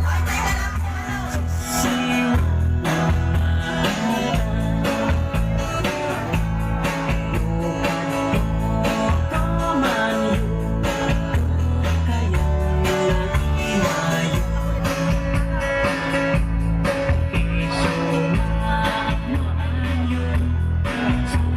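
Upbeat dance music with a heavy, steady bass beat and some singing, played loud.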